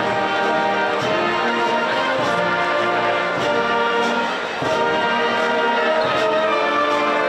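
Instrumental music led by brass, playing held chords that change every second or so.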